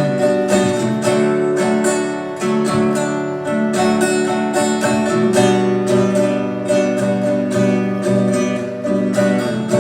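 Acoustic guitar strumming chords steadily in an instrumental passage between sung verses, with no voice.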